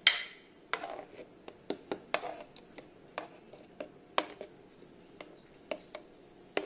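A plastic spoon tapping and scraping against a tray while mango juice is spooned over soaking rusks: a string of irregular light clicks, the loudest right at the start.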